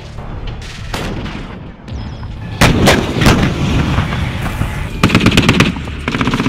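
Gunfire: a few heavy single shots from about two and a half seconds in, a short burst of rapid shots near five seconds, then steady rapid automatic fire from about six seconds on.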